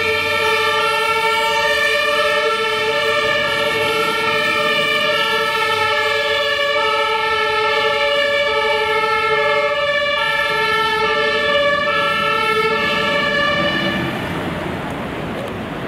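German fire engines' two-tone sirens (Martinshorn) sounding, a steady alternation between two pitches about once a second as the trucks drive off on an emergency run. The sirens fade near the end, leaving street traffic noise.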